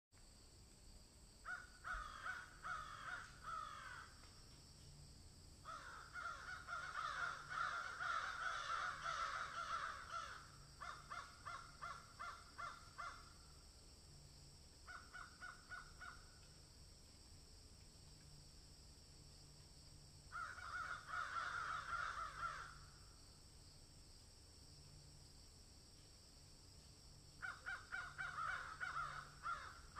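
Animal calls in rapid pulsed bursts of one to four seconds, repeated about six times with pauses between, over a faint steady high hiss.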